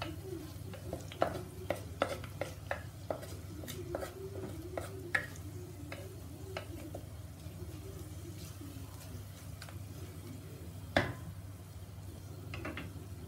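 A flat spatula scraping and tapping against a black handi while stirring golden-brown fried onions and curry leaves in hot oil. The taps are frequent in the first half and thin out later, with one sharper knock near the end.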